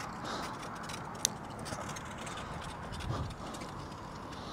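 Steady background noise of road traffic behind the shore, with one sharp click about a second in.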